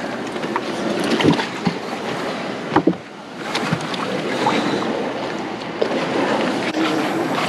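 Steady rush of water and air around a bass boat pulled up at the shore, with a few short knocks from people stepping and handling gear on its carpeted deck.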